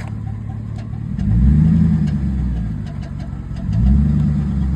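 2006 Chevy Silverado engine running, revving up twice: the pitch climbs and falls back about a second in and again near the end. The truck has a new noise that is getting worse, and the owner later suspects it comes from the exhaust.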